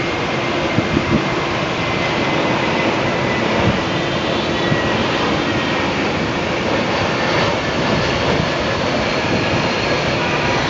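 Airbus A320-family jet airliner on landing approach, its engines giving a steady, loud jet noise with a faint whine running through it.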